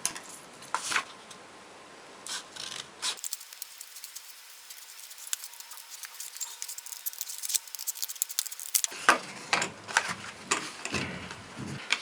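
A stiff crystal paper sheet being cut, with scattered sharp snips and light rustling of the paper.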